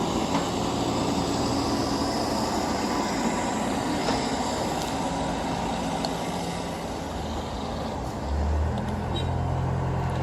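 Heavy machine's engine running steadily. About eight seconds in, a deeper, louder hum joins it and holds.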